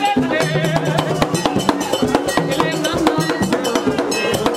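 Live Haitian Vodou music: hand drums and a clanking metal percussion beat in a fast, steady rhythm, with a man singing a chant through a microphone over them.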